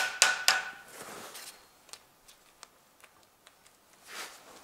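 Small hammer tapping a stuck camshaft bearing cap on a Toyota 2ZZ-GE cylinder head to free it: three quick light strikes with a brief metallic ring in the first half second. Then faint ticks, and a soft rustle near the end.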